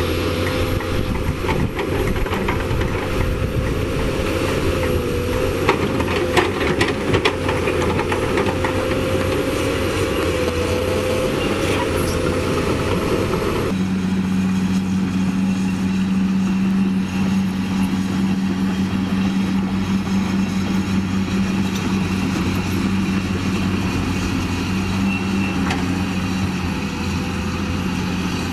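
Caterpillar 320D hydraulic excavator's six-cylinder diesel engine running steadily as the machine works, with a whine that wavers slightly in pitch and a few sharp knocks of stone about six seconds in. About halfway through the sound changes abruptly to a steadier, deeper engine drone.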